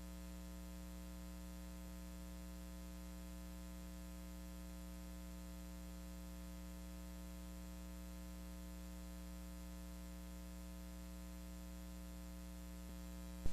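Steady low electrical hum with a faint hiss and no other sound, ending on a single brief tick.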